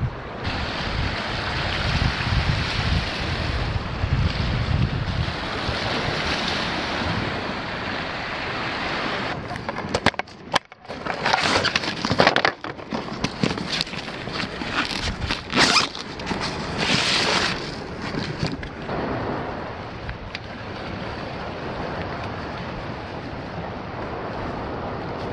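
Wind buffeting the microphone over a steady wash of sea surf on rocks. In the middle stretch, irregular rustling and clicks as a backpack's webbing straps and plastic buckles are handled, then steady surf and wind again.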